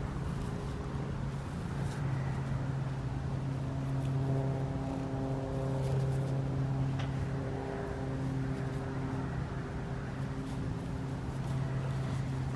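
Domestic tabby cat purring while being petted and rubbed, under a steadier and louder low machine hum that runs throughout. There are a few faint clicks, apparently from the handling.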